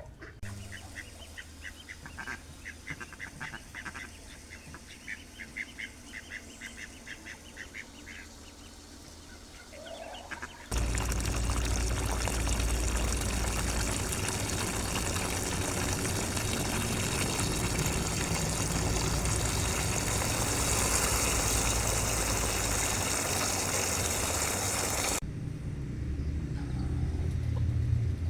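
Ducks quacking in quick runs of short calls for the first several seconds. About eleven seconds in, a loud steady rushing noise starts, then drops off a few seconds before the end.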